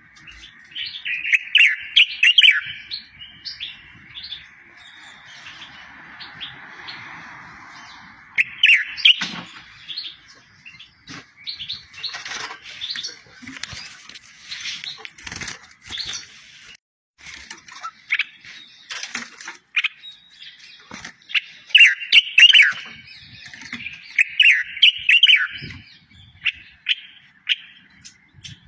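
Songbird singing a tutor song: rapid chirps, trills and quick sweeping notes in bursts of phrases, with short pauses between them. The loudest phrases come about two seconds in and again around twenty-two to twenty-five seconds.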